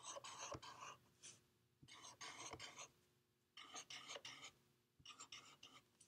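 Black felt-tip marker drawing on paper: four faint bursts of quick scratchy strokes, each about a second long with short pauses between, as small curved feather lines are drawn.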